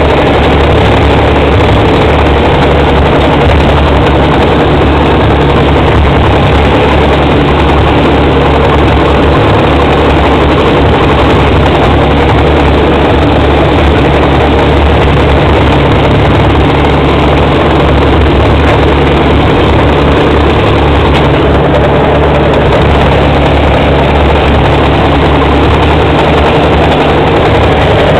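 Bulldozer's diesel engine running loud and steady.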